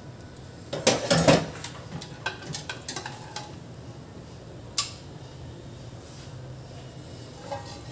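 Metal kitchen tongs clattering against the gas stovetop as they are set down about a second in, followed by a few light metal clinks, with a faint steady hum in between.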